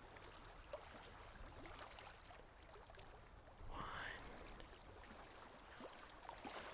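Faint, soft water-like ambience, a low trickling hiss, with one brief whisper-like breath about four seconds in.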